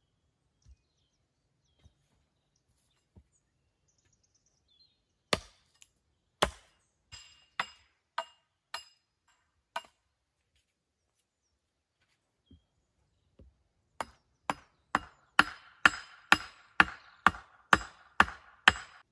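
A hammer striking a wooden pole to fix it in place, each blow sharp with a short ringing tail. There are about six spaced blows, then after a pause a faster run of about eleven, roughly two a second, the later ones louder.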